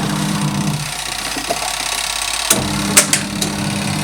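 Von 10 kg twin tub washing machine's motor humming steadily under a constant hiss. The hum drops out for about two seconds and comes back with a few sharp clicks.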